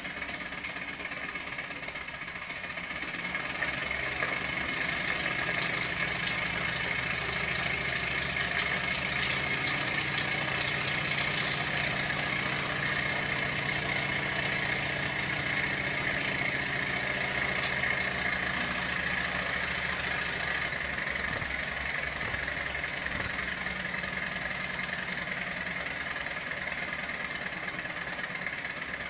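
Chiltern Mill Single model steam engine running steadily on steam from an electric boiler, belt-driving a small dynamo, with a constant high hiss over the mechanical running.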